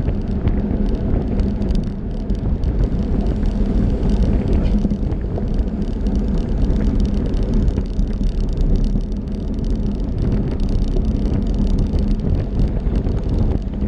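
Steady rush of wind and road noise on an action camera riding on a road bicycle at race pace, the tyres rolling on asphalt.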